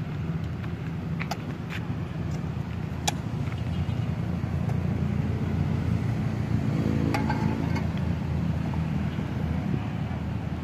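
Passing road traffic: a steady low rumble, with one vehicle's engine hum growing louder and going past about seven seconds in. A few sharp clicks are scattered through it.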